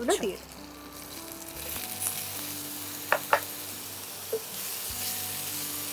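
Ridge gourd pieces frying in hot oil in a nonstick kadai: a sizzle that grows stronger from about two seconds in as the vegetable meets the oil, with a few sharp clicks near the middle.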